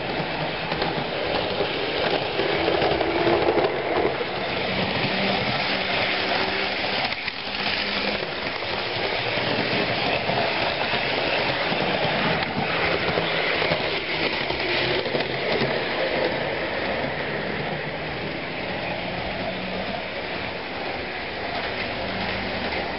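OO-scale model train running on sectional track: the steady whir of the motor and the rumble of wheels rolling over the rails.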